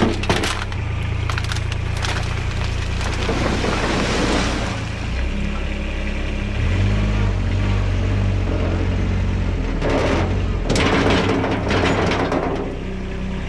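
Skid steer engine running steadily while it moves rocky gravel fill. There are two louder, noisier stretches, about four seconds in and again from about ten to twelve seconds.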